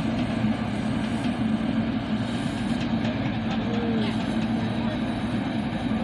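Concrete mixer truck's diesel engine running steadily, a constant drone with a low hum.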